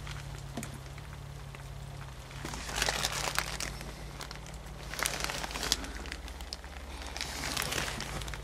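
Rustling and handling noise of someone shifting about in the cab seat and moving the camera, in three bursts about three, five and seven and a half seconds in, with a few sharp clicks, over a low steady hum.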